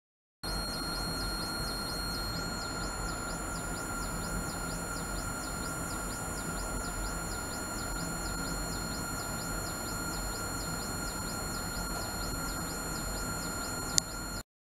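Ultrasonic transducer rig running, heard as a steady high whine with a higher steady tone and very high tones sweeping up and down about twice a second, over a steady hiss. It starts abruptly, a sharp click comes near the end, and it cuts off suddenly.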